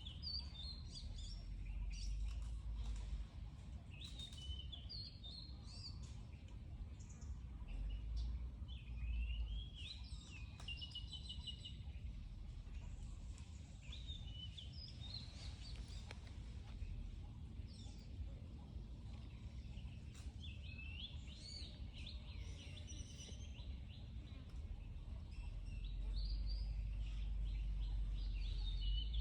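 Small birds chirping and trilling on and off in the background, over a low rumble that comes and goes and is strongest near the end.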